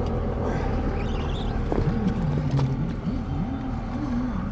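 A steady low motor hum, with a faint wavering pitched tone rising and falling from about two seconds in until near the end.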